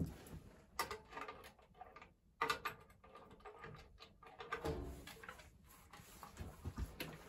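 A corrugated metal hot water bottle being handled and lifted off the top of a wood stove: irregular knocks, clanks and scrapes of metal on metal.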